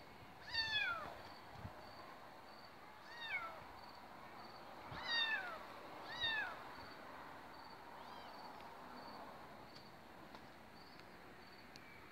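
Tabby kitten meowing: five high meows a second or two apart, each falling in pitch, the last one fainter.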